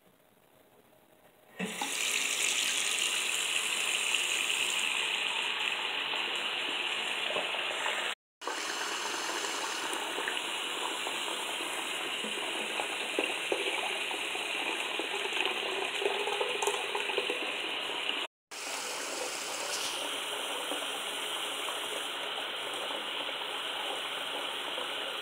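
Bathroom sink faucet turned on at the hot tap, running steadily into the basin from about two seconds in. Part of the time the stream runs into a plastic bottle held under the spout. The sound drops out for an instant twice.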